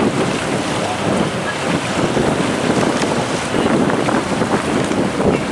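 Wind buffeting the microphone: a steady, gusting rush of noise.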